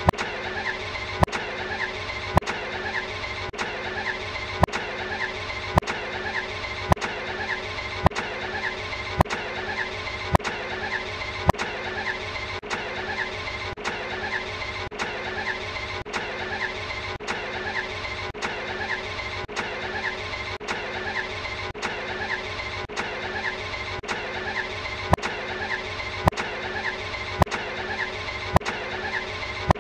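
Ferrari Enzo V12 start-up sound, a snippet of about a second looped over and over, with a sharp click at each seam about once a second.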